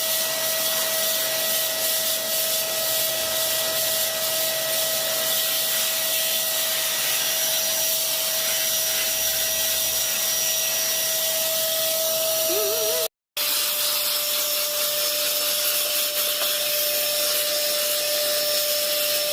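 Household vacuum cleaner running steadily, a whine over a hiss of rushing air. About thirteen seconds in it cuts out for a split second, then comes back with its whine a little lower in pitch.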